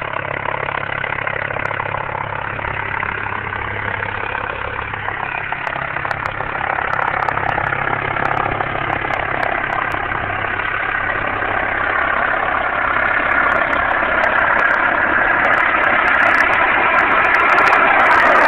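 Medical helicopter coming in to land, its engine and rotor noise steady and growing gradually louder as it nears.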